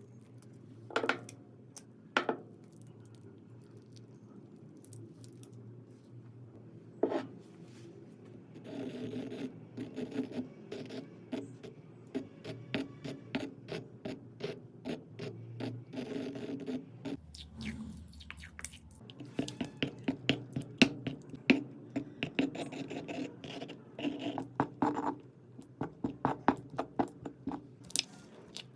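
Slime being squeezed and pressed by hands: a few separate clicks at first, then from about a third of the way in a long run of small sticky crackles and pops, coming in bunches with each squeeze.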